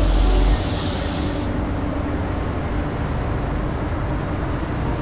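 Walcom Genesi Carbonio 360 paint spray gun hissing as it lays on clear coat, cutting off about a second and a half in. A steady rush of spray-booth airflow continues underneath.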